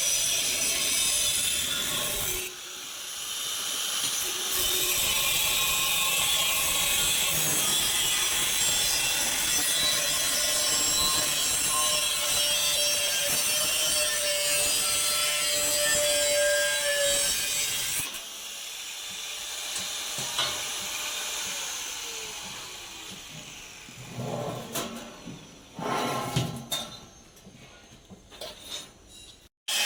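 Angle grinder cutting into a steel cable tray, a steady loud grinding that runs for most of the first two-thirds, then winds down with a falling pitch, followed by a few knocks and clatter of the metal being handled.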